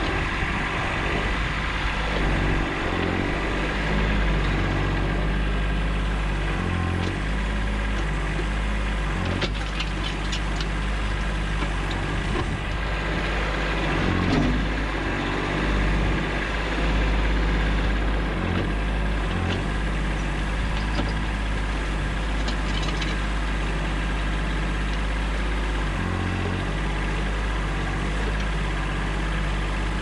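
Diesel engine of a 1991 Kubota B7100 compact tractor running steadily while it powers a Bradco 3265 backhoe digging hardpan. The engine note dips and swells as the hydraulics take load, and there are a few short scrapes and clicks from the bucket working in rocky ground.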